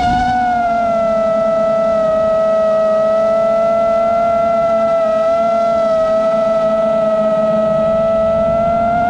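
Long-range FPV quadcopter's motors and propellers whining in flight at a nearly steady pitch. The pitch eases down slightly in the first second and lifts again near the end.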